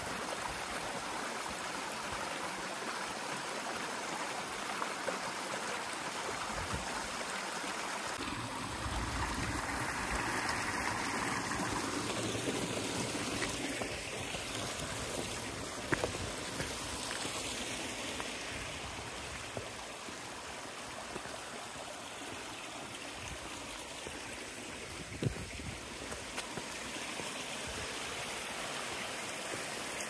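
Small hill stream running and splashing over rocks, a steady rush of water, with a couple of sharp clicks of boots on the stony path.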